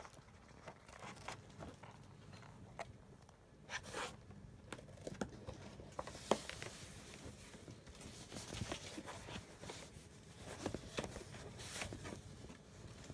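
Cardboard box scraping and rustling as it is handled and a cat rubs its head against it and climbs inside, with scattered light taps and knocks.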